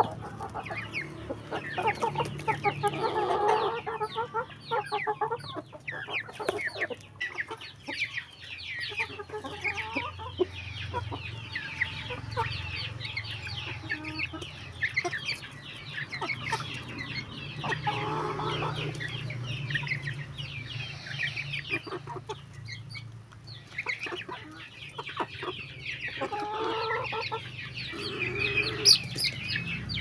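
A flock of chickens clucking as they peck at feed, with many quick, sharp taps of beaks on the ground and on an open hand.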